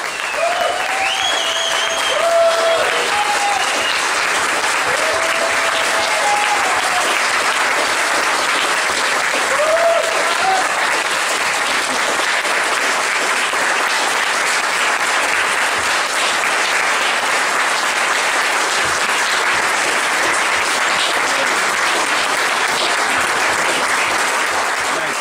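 Audience applauding steadily after a tango performance, with a few voices whooping and cheering in the first seconds and again about ten seconds in.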